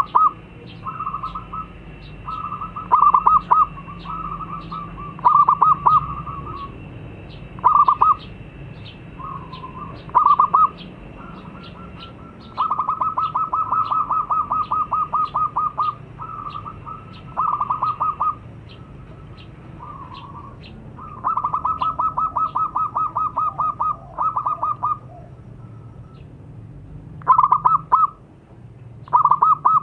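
Zebra dove (perkutut) cooing in its rapid, rolling staccato song: a series of short phrases, with two longer runs of quick pulsed coos lasting about three to four seconds each. A thin high ticking repeats at an even pace throughout.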